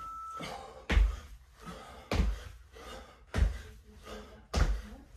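Feet landing on a foam exercise mat during repeated frog jumps: a heavy thump about every 1.2 seconds, four in all. Just before the first landing, an electronic interval-timer beep ends.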